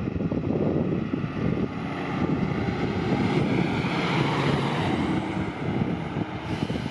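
Fire engine driving by without its siren, a heavy low engine rumble with tyre and road noise that builds and peaks a few seconds in; the siren is off because the appliance has been downgraded from the call.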